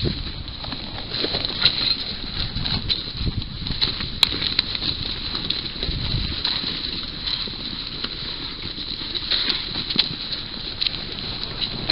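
Carrion birds feeding at a carcass: scattered rustling, knocks and wing flaps over a steady high-pitched hum.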